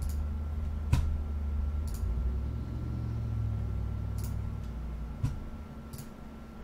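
Computer mouse clicking about six times at irregular intervals, over a steady low hum.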